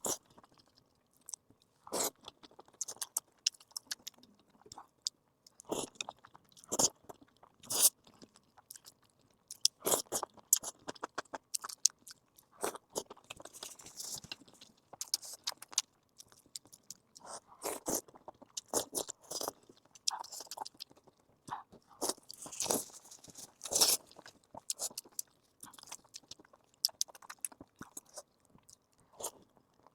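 A person biting into and chewing crunchy food, an irregular run of crisp crunches and wet chewing with short pauses between bites.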